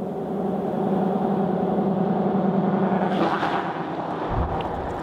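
A car passing on the road: its tyre and engine noise swells, is loudest about three seconds in, then fades away. A short low thump comes near the end.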